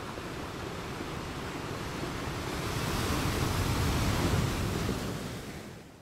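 Stormy sea sound effect: a rushing noise of waves and wind with a low rumble. It fades in, swells to its loudest about four seconds in, then fades away near the end.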